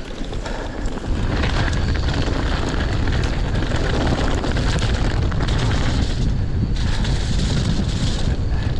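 Wind buffeting the microphone of a mountain bike rider descending fast on a dirt track, mixed with the rush of tyres over dirt; it gets louder about a second in as speed builds.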